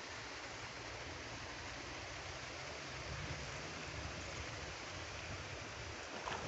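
Steady outdoor background noise: an even hiss with a low rumble underneath, and no distinct separate sounds standing out.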